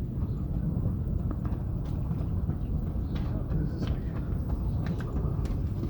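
Steady low rumble of outdoor background noise, with a few light taps scattered through it.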